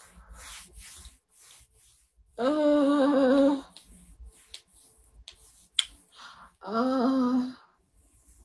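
A woman's voice humming two long held notes, each about a second, a few seconds apart, with a sharp click between them.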